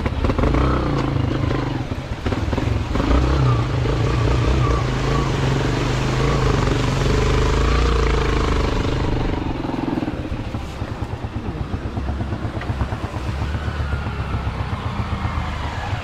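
Vehicle engine running under load, its pitch shifting up and down. About ten seconds in it drops to a quieter, steadier run as the vehicle slows.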